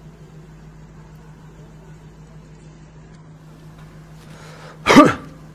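Steady low electrical hum. About five seconds in, a man lets out a short, loud vocal sound that falls in pitch, like an exasperated sigh.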